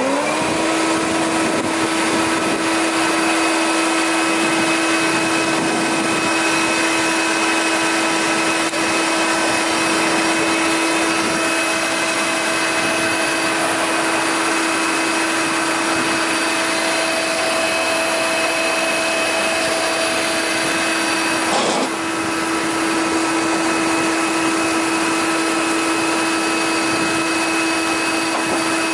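Jaroma DSFA 40 thickness planer running with no wood fed: its motor finishes spinning up in the first half-second, then runs with a steady whine. A short click comes about three-quarters of the way through, after which it runs slightly quieter.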